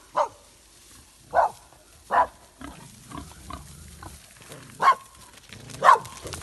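Wild boar grunting in short single calls, about five of them spread a second or so apart, as it charges.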